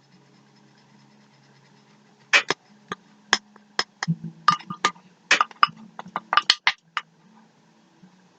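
A metal spoon clinking and tapping against a bowl in irregular bursts while stirring glue-and-laundry-detergent slime. The clinks start about two seconds in, pause briefly around four seconds, and stop about seven seconds in.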